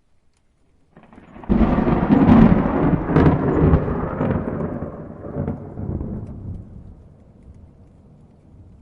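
A thunderclap. It comes in about a second in, breaks sharply with several cracks over the next two seconds, then rumbles and slowly dies away.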